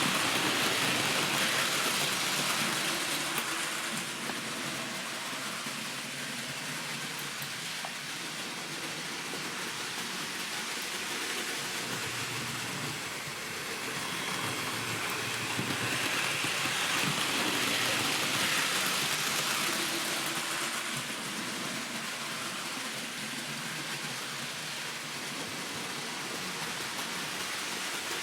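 Model train running on its track: a steady hiss of motor and wheels that swells louder twice, at the start and again about two-thirds of the way through, as the train comes nearer.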